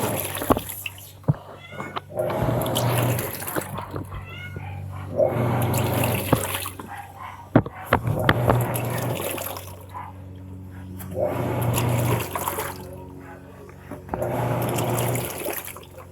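Panasonic washing machine washing on its blanket cycle: the motor drives the wash in surges about every three seconds, each a low hum with water sloshing in the tub.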